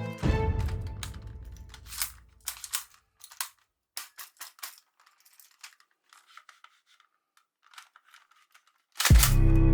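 Scattered sharp clicks and clacks of a plastic toy gun being handled, irregular and mostly light. A deep boom from the backing music dies away at the start, and music starts again near the end.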